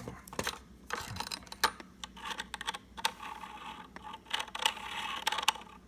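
Cheap domestic sewing machine being worked without stitching: irregular clicks and rattles from its mechanism, with a stretch of steady buzzing from about two seconds in until near the end.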